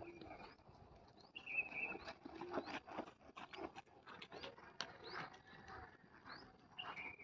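Faint birds chirping over soft, irregular thuds of horse hooves on a dirt arena.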